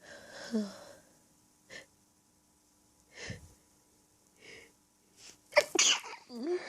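A person's sneezing fit from an allergy tickle: catching, breathy intakes, a few short, quieter bursts, then one loud sneeze about five and a half seconds in.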